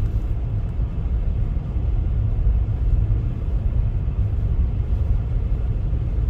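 Steady low rumble of a car driving on a snow-covered highway: engine and road noise.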